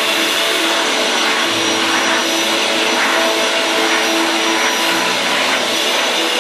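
Vacuum cleaner running, its hose nozzle drawn through a long-haired cat's fur: a steady, loud rushing hiss with a hum that shifts in pitch now and then.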